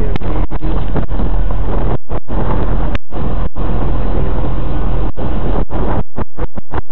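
Loud steady rumble of a catamaran under way at sea, mixed with wind on the microphone; the sound cuts out in many brief gaps, several close together near the end.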